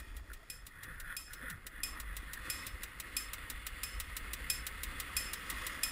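Quiet passage of background music: a soft, even ticking about four times a second over a faint hiss, with no deep bass.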